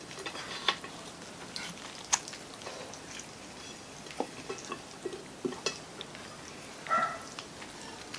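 Serving tongs and utensils clicking and scraping against plates and food while noodles and fried chicken are served, a scatter of light clicks and knocks, the sharpest about one and two seconds in.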